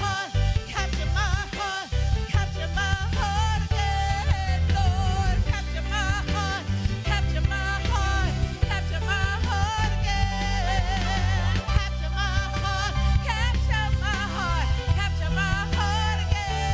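Gospel worship song: a singer holding and bending notes with wide vibrato over a keyboard and drums, with a strong, steady bass.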